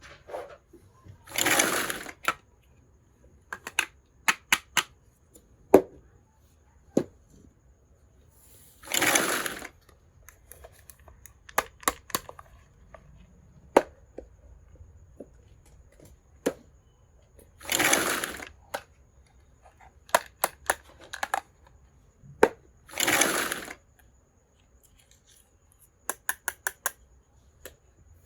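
Unboxing a miniature toy kitchen set: small pieces clicking and tapping, sometimes several in quick succession, with five louder swishing noises of about a second each from the packaging being handled.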